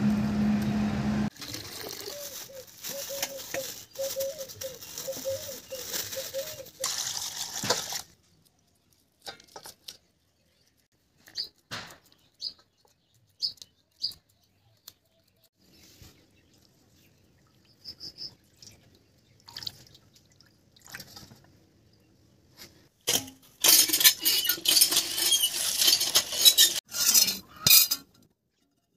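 Several separate stretches of sound. First, steady road traffic noise for several seconds. Then sparse splashes, drips and knocks as hilsa fish are scaled and rinsed in a steel bowl of water, and near the end a few seconds of loud crackling from wood burning in a clay stove.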